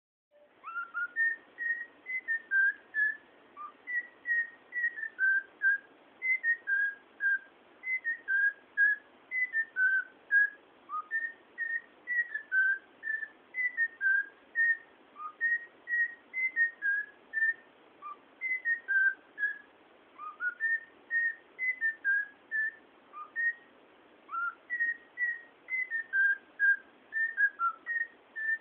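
Young cockatiel whistling a learned tune: a long run of short, clear notes, about two a second, stepping up and down in pitch with brief pauses between phrases.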